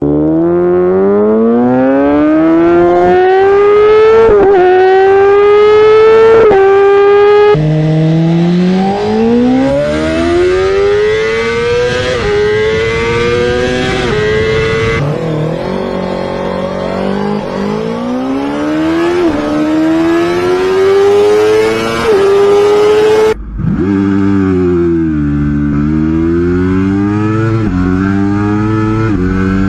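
Motorcycle engines accelerating hard through the gears: each rise in pitch is broken by a short drop at every upshift. The sound cuts abruptly to a different bike several times. In the last part one engine's pitch falls, then climbs again.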